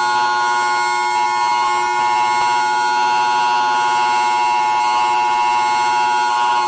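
Emergency alert alarm tone: a loud, steady siren-like chord of several pitches held without change.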